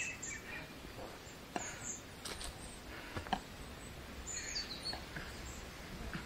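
Forest ambience with small birds chirping in short, high notes, including a quick falling call about four and a half seconds in. Scattered clicks and scuffs of footsteps on a rocky trail come in the first half.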